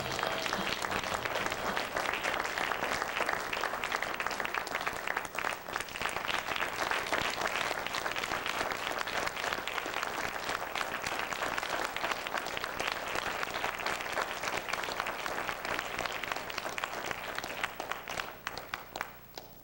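Audience applauding: dense clapping that thins out and fades away near the end.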